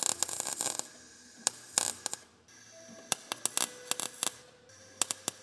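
MIG welder arc crackling and spitting in a string of short stop-start bursts with quiet gaps between, as a patch is tacked onto the thin original underbody sheet metal of a 1972 Toyota Corolla. That sheet metal is so thin that it keeps blowing through.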